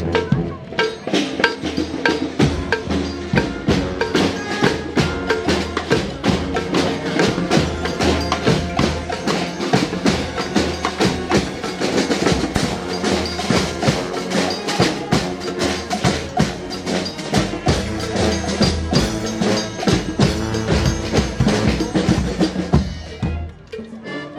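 Street band of horns and drums playing a lively tune, with a busy steady drumbeat under sustained horn lines; the music drops away just before the end.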